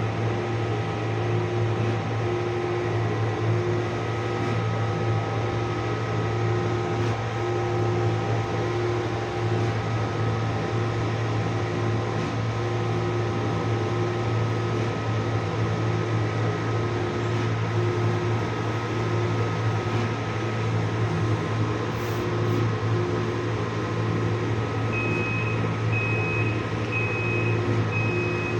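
Printing machine running steadily with a low hum and a faint regular pulse about once a second. Near the end, a series of short, high beeps about once a second.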